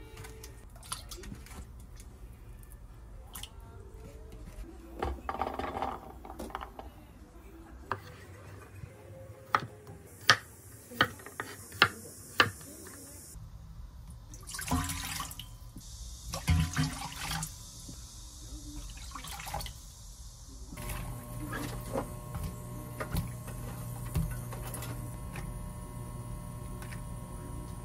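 Water splashing and pouring in stainless steel kitchenware: water sloshing in a bowl, then poured from a plastic measuring cup into a steel pot, with a series of sharp clicks. A steady low hum sets in about three-quarters of the way through.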